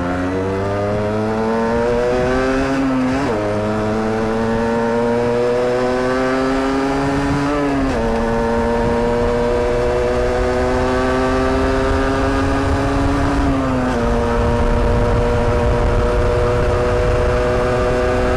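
Rieju RS3 NKD's 50cc two-stroke engine pulling up through the gears, its pitch climbing slowly in each gear and dropping at three upshifts, about three, eight and fourteen seconds in. Wind rumbles on the microphone, louder near the end.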